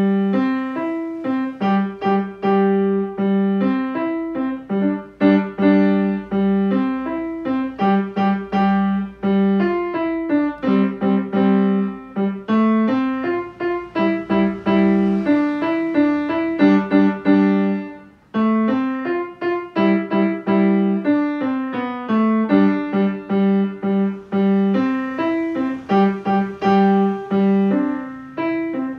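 Kawai grand piano being played, a quick, steady stream of notes in the middle register with a short break about two-thirds of the way through.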